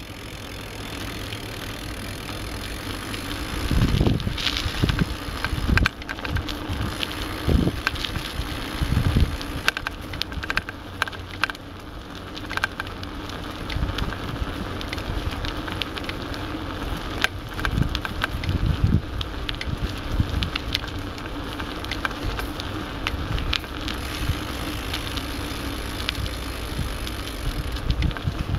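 Handling and movement noise from a handheld camera carried along a rough paved path: a steady low rumble with irregular knocks and rattles, strongest in the first ten seconds.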